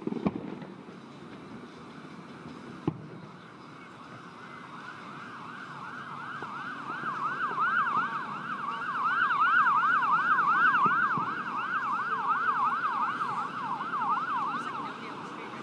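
Emergency vehicle siren in a fast yelp, its pitch rising and falling about three times a second. It swells in a few seconds in, is loudest in the middle and fades near the end. A couple of sharp fireworks bangs come near the start.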